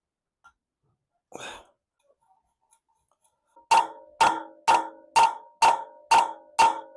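Hammer tapping a timing-chain guide pin home in a Mercedes M110 engine: seven sharp metallic strikes, about two a second, each with a short ring, starting a little past halfway.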